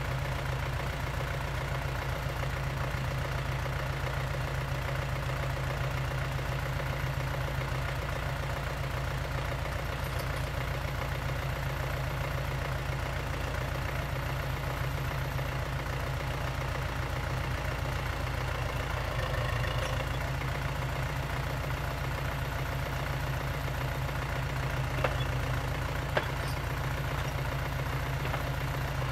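Jumz excavator's engine running at a steady speed, with two brief sharp knocks near the end.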